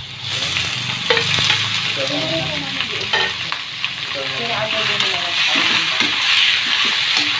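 Raw pork pieces hitting hot oil in a wok with sautéing ginger, onion and garlic, setting off a loud, steady sizzle as the meat goes in. A metal spatula clicks and scrapes against the wok as the pork is stirred.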